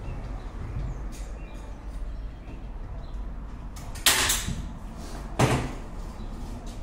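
Hand staple gun fired twice, about a second and a half apart, sharp snapping shots that fix the tensioned wire to a wooden honey-super frame. Faint clicks of tool handling sit around them.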